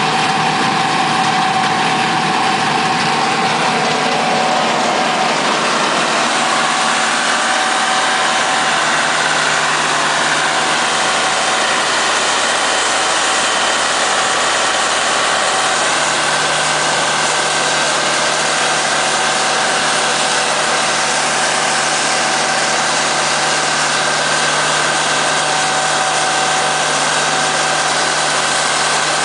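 40 hp diesel engine of a DWC40 wood chipper running steadily with a loud, even drone.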